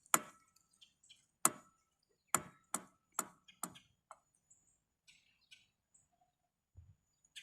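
A series of six sharp knocks in the first four seconds, unevenly spaced, followed by a few faint small ticks.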